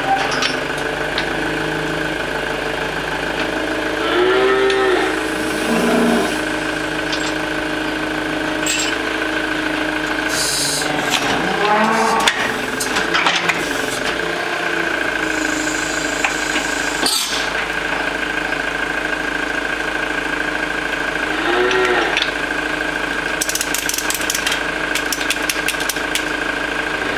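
Limousin cow mooing several times while restrained in a tilting hoof-trimming crush: a few seconds in, again around the middle, and once more later on. Under the calls runs a steady mechanical hum from the crush's hydraulic power unit, with a couple of sharp metallic clanks.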